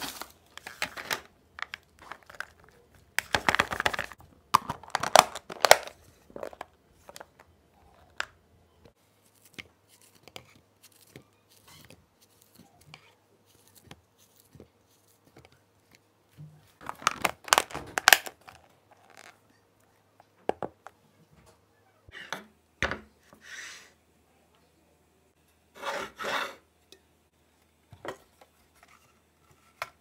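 Packaging being torn and crinkled by hand, in separate bursts a few seconds apart.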